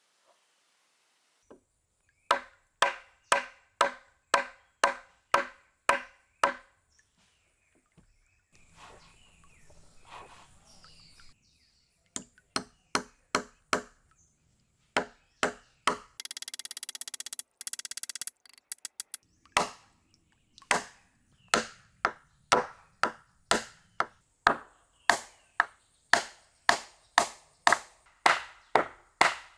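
Wood being chopped with a blade: sharp, ringing strikes at about two a second in several runs with short pauses between. About two-thirds of the way through, a few seconds of steady, dense rasping noise breaks the chopping.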